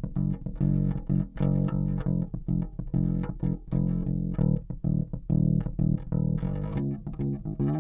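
OLP MM3 five-string passive electric bass played fingerstyle, a continuous run of plucked notes. Only the front coil of its single humbucker is on, for a tone test.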